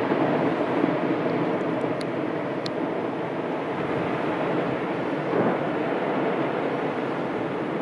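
Lava fountains of Piton de la Fournaise jetting from an eruptive fissure: a steady, dense rushing roar. Two faint sharp ticks come about two and three seconds in.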